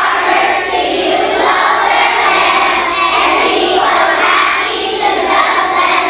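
A large group of young children's voices in unison, carrying on steadily with long-held notes.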